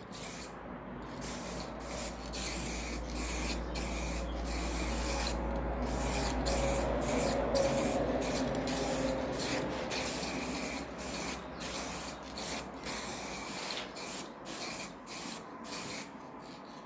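Rhythmic back-and-forth rubbing strokes on a surface, about two a second, with a faint low hum under the first part that stops near the end.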